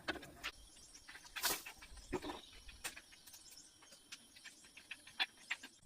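Quiet background with faint insect chirping and scattered light clicks and taps.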